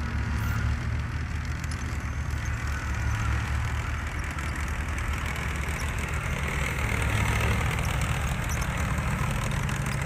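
Tracked armoured vehicle driving past on a dirt road: its heavy engine runs steadily under a fine rattle of the tracks, growing a little louder about seven seconds in as it comes closest.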